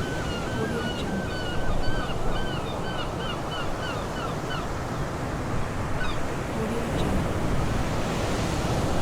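Surf washing steadily on a beach, with gulls calling: a quick series of short repeated calls over the first four seconds or so, then a couple of single calls later.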